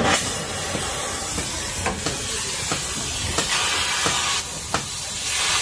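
Oxy-fuel gas cutting torch hissing steadily, with several sharp pops, as it is used to cut out the broken centre bolt of a truck's leaf spring.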